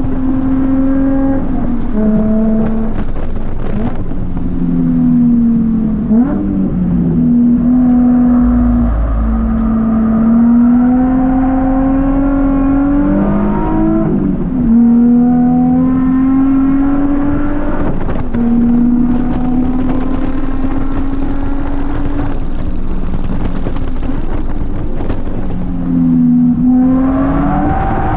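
Nissan Z33's VQ-series V6 heard from inside the cabin while drifting, pulling hard with its pitch rising and dropping again and again as the throttle is worked, with a sharp dip and recovery around a gear change about halfway through.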